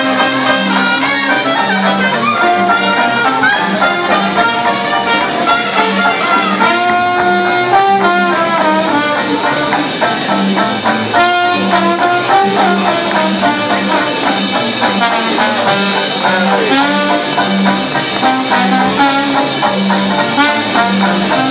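Live jazz band playing: brass horns carry the melody over double bass and drums, with a steady bass beat about twice a second.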